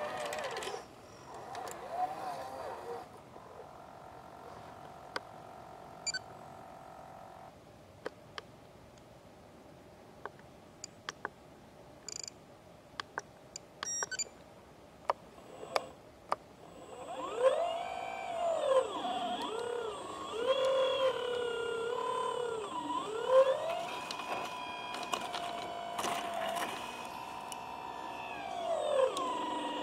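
Electric motors of scratch-built 1/10-scale RC construction models: a steady whine for a few seconds, then scattered sharp clicks, then, from about halfway, repeated whines that rise and fall in pitch as the RC excavator works its boom and bucket.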